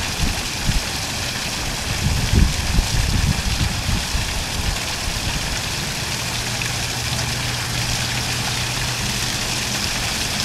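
Several small artificial waterfalls spilling over a rock wall into a shallow pond: a steady splashing hiss of falling water. Low rumbles come and go over the first few seconds, and a steady low hum joins about six seconds in.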